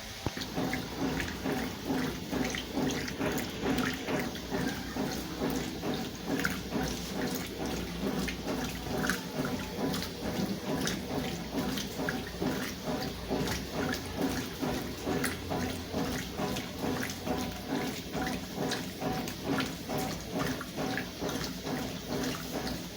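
Consul CWS12 washing machine agitating its load in water during a rinse: water sloshing in a fast, even pulsing rhythm, a few strokes a second, starting abruptly at the outset.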